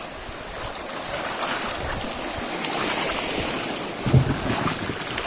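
River water rushing around a bamboo raft as it runs a small stretch of rapids, swelling midway, with a dull low thump about four seconds in.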